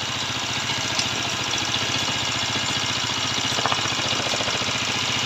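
Yamaha R15 V2's single-cylinder four-stroke engine idling steadily after a rebuild, its oil pump now circulating oil again after the engine had run without oil.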